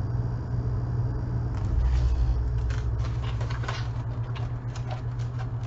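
A steady low hum with scattered light rustles and taps, and a deeper rumble swelling for a second or two about two seconds in.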